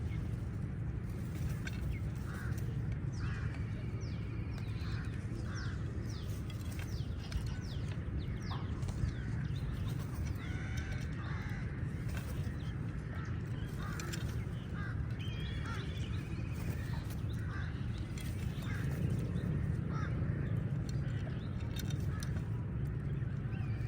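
A flock of crows cawing over and over, many short calls overlapping from different birds, over a steady low rumble.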